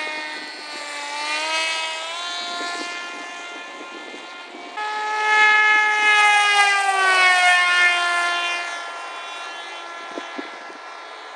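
Electric motor and propeller of a Crash Test Hobby Assassin RC plane in flight: a whine that rises in pitch about a second in, grows suddenly louder about five seconds in, then falls in pitch and fades as the plane passes.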